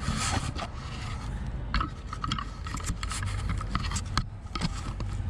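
Scraping, rubbing and scattered light clicks of metal parts and tools being handled on a workbench, over a steady low hum.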